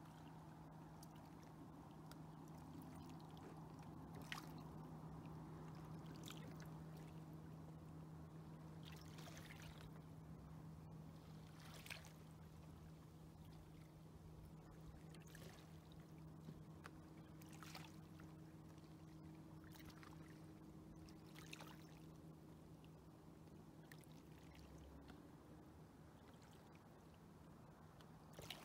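Near-silent lakeshore: faint small water lapping, with a soft splash every few seconds, over a low steady hum.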